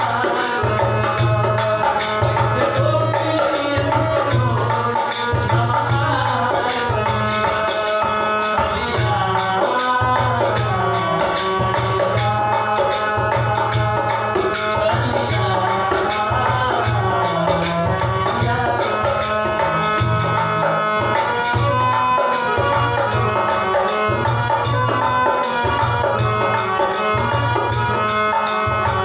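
Bhajan music: a harmonium plays sustained chords and melody over a steady drum beat and jingling hand cymbals, with a man singing along at times.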